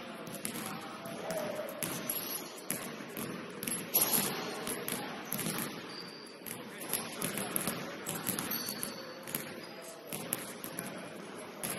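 Basketball game in a gym: the ball bouncing on the hardwood court again and again, with a sharper bang about four seconds in, brief high sneaker squeaks, and players' voices echoing in the hall.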